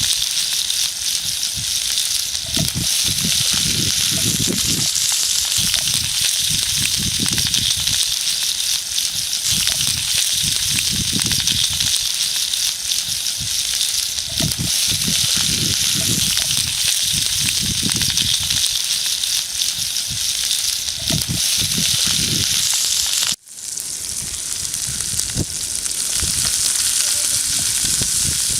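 Food sizzling in a cast iron skillet over a campfire: a steady high hiss with irregular low rumbles underneath. The sound breaks off for an instant near the end and picks up again.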